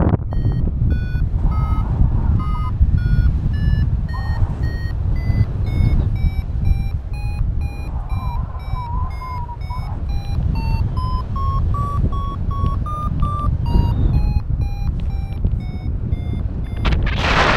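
Paragliding variometer (XCtracer Mini IV) sounding its climb tone: a rapid series of short beeps whose pitch rises step by step for about twelve seconds, then drops lower, showing the glider climbing in a thermal, with the pitch going up as the lift strengthens and down as it weakens. Steady wind noise on the microphone runs underneath, with a loud gust of wind noise just before the end.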